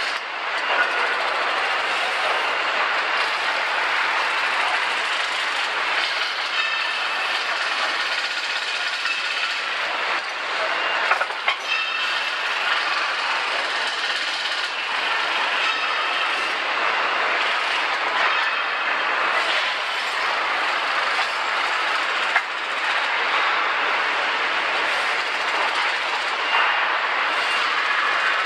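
Steady din of an engine assembly line: continuous machinery and air noise, with a few sharp metallic knocks about a second in, near the middle and around two-thirds of the way through.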